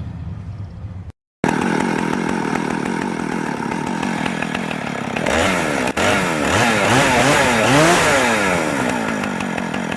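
Chainsaw running with its chain just refitted to the bar, starting abruptly about a second in and revved up and down several times in the second half.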